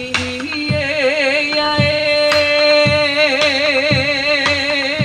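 Hawaiian song sung in Hawaiian for a hula, the voices holding long notes with a wavering pitch over a steady beat of about two strokes a second.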